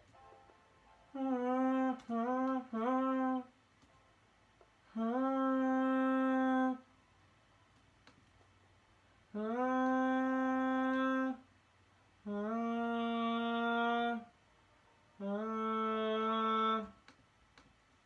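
A solo melody of held notes: three short ones, then four long notes of about two seconds each with pauses between. Each note starts with a slight upward scoop in pitch, and the last two sit a little lower.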